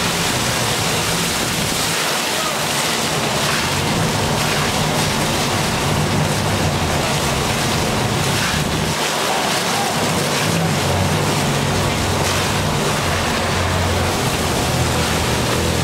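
Fire hose stream spraying and splashing against a building front: a loud, steady rushing hiss of water. A low engine drone runs underneath.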